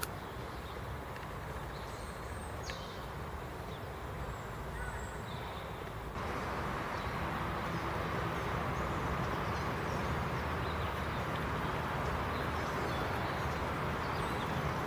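Steady rain falling, with a few faint bird chirps in the first half. The rain becomes louder about six seconds in.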